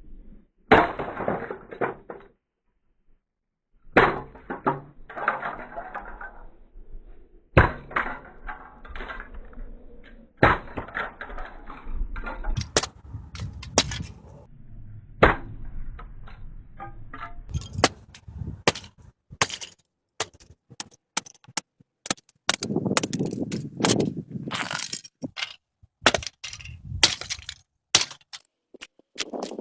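An alarm clock being smashed with repeated hard blows, its casing cracking and pieces clattering after each hit. The blows come a few seconds apart at first, then thick and fast from about halfway through.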